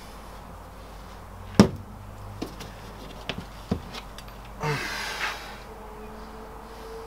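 Workshop handling sounds from parts of a VW air-cooled engine on a bench. There is one sharp metallic knock about one and a half seconds in, then a few lighter clicks as the crankshaft assembly is lifted over the crankcase half, and a brief rustling scrape near the five-second mark.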